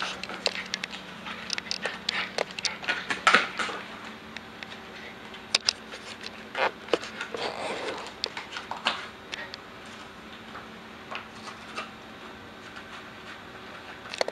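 An American Eskimo dog chewing and tearing a cardboard toilet paper roll: irregular crunching and crackling of the cardboard, dense and quick in the first few seconds, then sparser.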